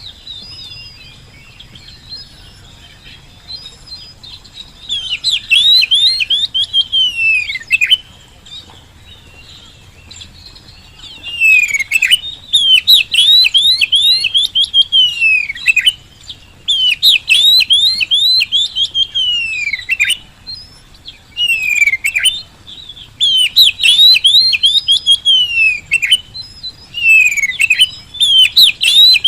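Oriental magpie-robin (kacer) singing loudly in repeated bursts of rapid whistled and sweeping notes, each phrase a few seconds long with short pauses between: full song of the kind used to stir other magpie-robins into singing.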